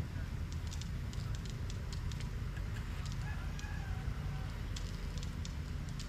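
Water spinach being pulled up by hand: irregular crackling and snapping of stems and roots tearing out of the soil, over a steady low rumble of wind on the microphone.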